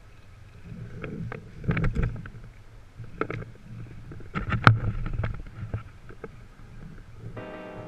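Irregular knocks and clicks over a low rumble, the loudest about two-thirds of the way through. Near the end a steady pitched tone with many overtones starts.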